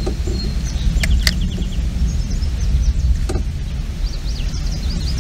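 Wind buffeting the microphone as a steady low rumble, with small birds chirping faintly and a few sharp clicks.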